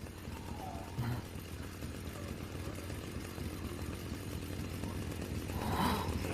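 Low, steady engine-like rumble that slowly grows louder, with a brief knock about a second in.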